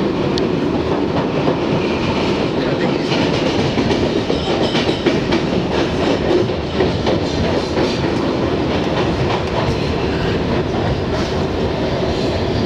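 R62 subway car running on the rails, heard from inside the car: a steady loud rumble with wheel clatter.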